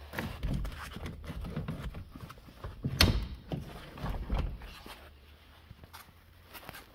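Irregular knocks, thuds and rustling from handling inside a stripped-out car interior, with one sharp, loud knock about three seconds in and a few lighter ones after it.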